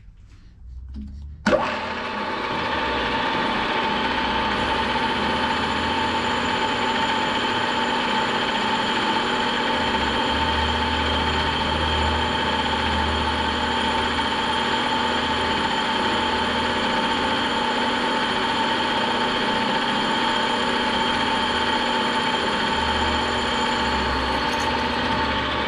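Milling machine switched on about a second and a half in, its spindle motor running steadily with a few steady tones while a drill bit bores a hole through an aluminum plate.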